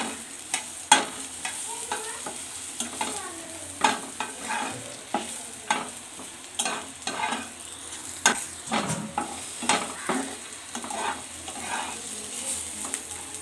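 Whole spices frying in mustard oil in a non-stick kadai on low flame: a gentle, steady sizzle, with a steel spatula scraping and stirring through the pan in repeated irregular strokes.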